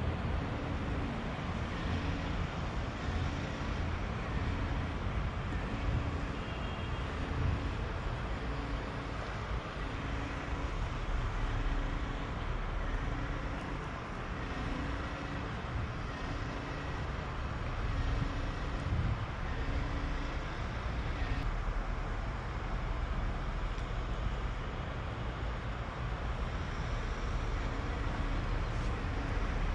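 Steady rumble of distant road traffic, with a faint low tone pulsing about once a second through much of it.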